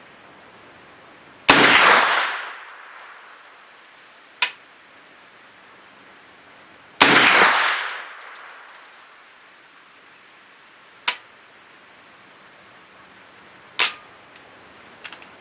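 Two shots from a Thureon Defense 9mm pistol-caliber carbine, about five and a half seconds apart, each ringing out in a long fading echo. A few sharp, much lighter clicks fall between and after them.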